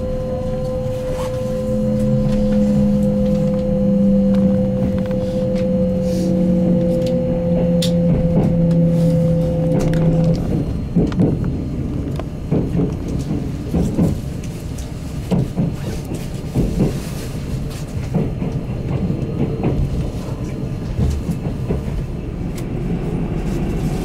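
Running noise of a Kintetsu limited express train heard from inside the car as it pulls out of a station and gathers speed. Background music with held notes plays over a low rumble and stops about ten seconds in. After that the wheels clack irregularly over rail joints and points.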